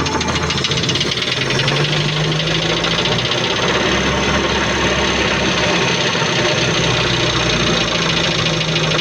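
Car engine running steadily, with a rapid, even mechanical clatter over its hum.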